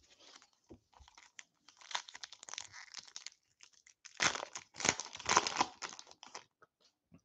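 A foil trading-card pack being torn open and its wrapper crinkled in the hands: a crackling rustle that grows, is loudest from about four to six seconds in, and stops shortly after.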